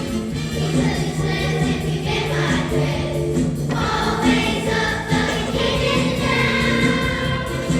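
A choir singing over sustained low accompanying notes.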